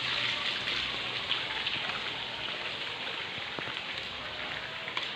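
Steady hiss of pattering, splashing water that slowly grows fainter, with a few faint ticks.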